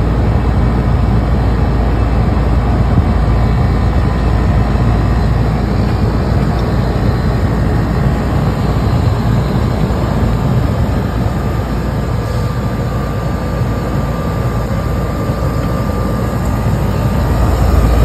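Lennox outdoor AC condensing unit running, its compressor and condenser fan making a steady loud drone, with the contactor held in by hand. The liquid line service valve is closed, so the compressor is pumping the system's refrigerant down toward zero psi.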